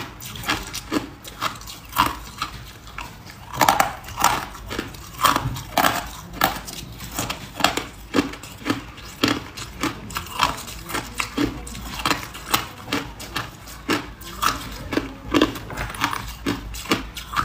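Hard ice cubes being bitten and chewed close to the mouth: a continuous run of sharp, brittle crunches, about two or three a second.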